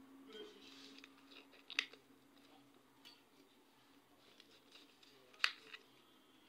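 Faint rustling of a sheet of paper pattern being lifted and handled, with a sharp snap about two seconds in and another about five and a half seconds in.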